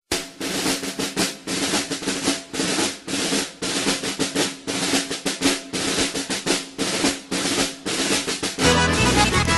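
Snare drum rolling and beating, a march-style drum intro to a music track. About eight and a half seconds in, the rest of the band comes in with pitched notes and a low bass line.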